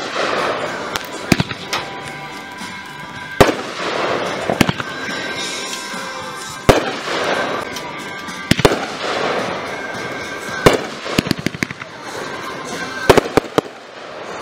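Aerial fireworks bursting: sharp bangs every second or two, with quick runs of pops about two-thirds of the way in and again near the end.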